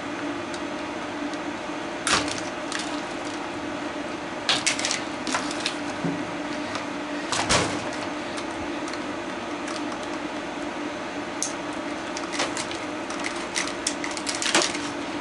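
Irregular sharp clicks and snaps of plastic as zip ties are cut and plastic parts are pried apart, the loudest snap about seven and a half seconds in, with a steady low hum underneath.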